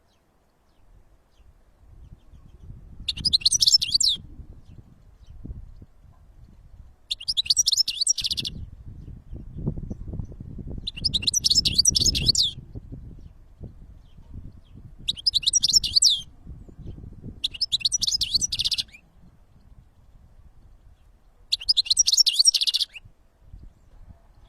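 European goldfinch singing: six short, fast twittering phrases, each about a second long, with pauses of a few seconds between them, over a low rumble.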